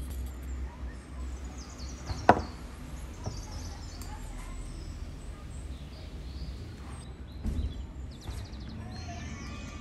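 Quiet seasoning handling at a wooden bowl with a wooden spoon: one sharp knock about two seconds in is the loudest sound, a softer thump comes later, and liquid starts pouring into the bowl near the end, over a low steady rumble.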